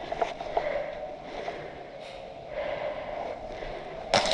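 Quiet breathing and light movement, then near the end a sudden loud burst of rapid sharp cracks, an airsoft gun firing.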